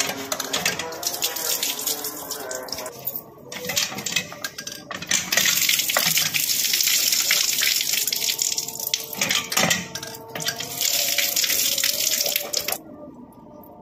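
Water running from a pump spout and splashing as someone washes hands and face for ablution, heaviest through the middle and falling away near the end.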